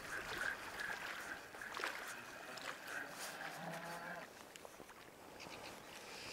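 Faint wind and small waves lapping at a lake shore, with a faint high tone that swells and fades through the first half and a short, low drawn-out call about halfway through.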